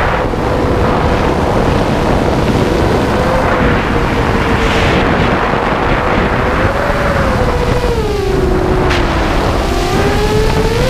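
Shrike 5-inch FPV racing quadcopter's brushless motors, Multistar Elites on HQ 5x4.5 bullnose props, whining in flight under heavy wind rush, heard from the onboard camera. The whine holds steady, drops in pitch as the throttle comes off about eight seconds in, then climbs again near the end.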